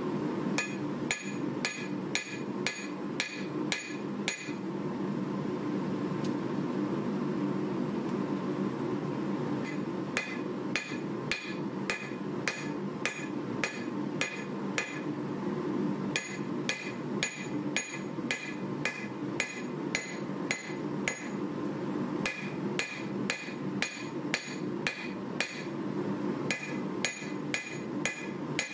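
Hand hammer striking a red-hot 1095 carbon-steel knife blade on an anvil, in runs of about two blows a second, each blow ringing briefly. The hammering stops for about five seconds after the first run, then goes on in runs with short breaks.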